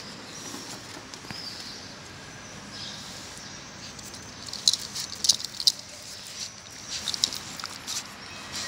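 Plastic crinkling and crackling in two short bursts of quick clicks, one about halfway through and one shortly before the end, over a steady outdoor background.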